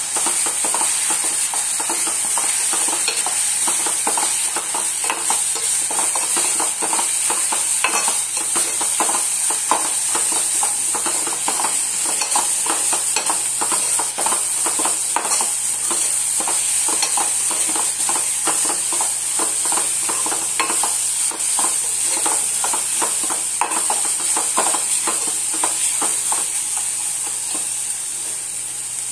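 Onion-tomato masala frying in a metal pot on a gas burner, sizzling steadily while a metal spoon stirs and scrapes against the pot in quick repeated strokes.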